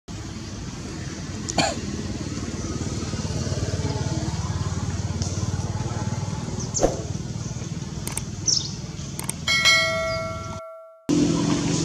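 A subscribe-button sound effect near the end: clicks followed by a bright bell chime that rings for about a second and cuts off. A steady low background rumble runs under it, with a few brief sharp sounds earlier on.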